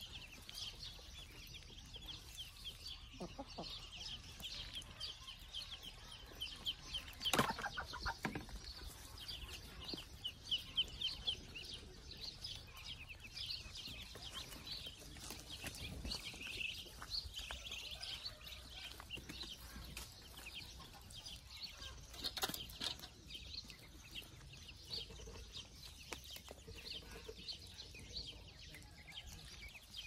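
A flock of ducklings peeping continuously in quick, high chirps, with a couple of sharp knocks, the loudest about seven seconds in.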